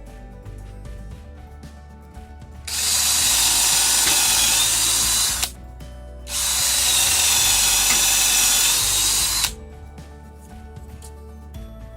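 Hamilton Ultimate cordless drill running at full speed in two bursts of about three seconds each, a short pause between them: a high wavering whine over a rasping hiss, as when the bit is cutting into a workpiece.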